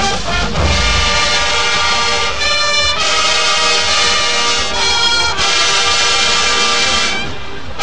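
Marching band brass section playing loud sustained chords with a driving beat, in the style of an HBCU stand tune.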